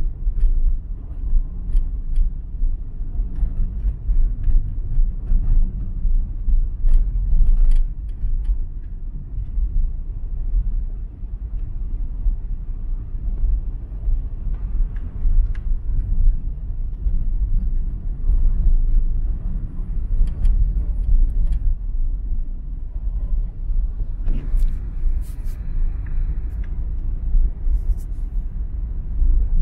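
Steady low rumble of a car driving on a wet road, with scattered light ticks. A few seconds of louder hiss come about three-quarters of the way through.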